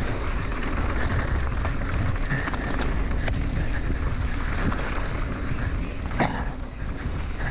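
Wind buffeting the microphone of a helmet camera on a mountain bike riding fast down a dry dirt trail, over the steady rolling rumble of the tyres. A few short clicks and knocks come from the bike as it crosses bumps, the sharpest about six seconds in.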